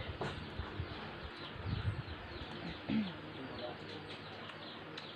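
Quiet mealtime ambience: faint, brief low voices and small clicks while people eat, with birds chirping and calling in the background.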